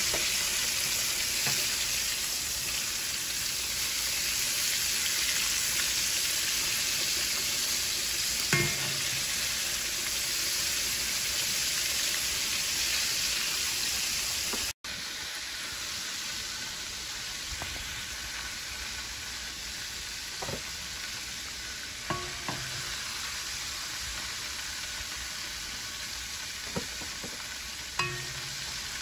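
Battered chicken and conch frying in hot oil in a shallow pan, a steady sizzle, with a few sharp clicks of a metal spatula against the pan.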